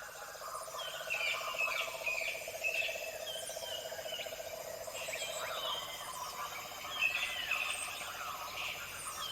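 Forest ambience of many birds chirping and calling, short whistled notes and sweeps overlapping, with a steady rapid trill underneath that stops about six seconds in.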